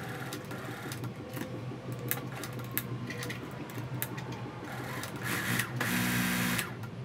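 Electric sewing machine running a zigzag stitch, the needle clattering rapidly over a steady motor hum. It gets louder for about a second near the end.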